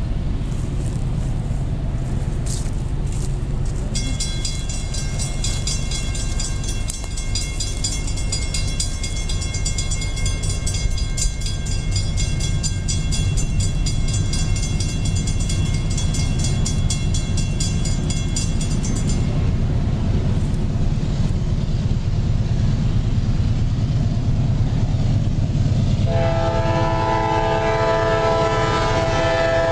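Grade-crossing warning bell ringing rapidly for an approaching train, falling silent about two-thirds through. Near the end, the air horn of CSX GE CW44AC locomotive 261 blows a several-note chord for the crossing, over a steady low rumble.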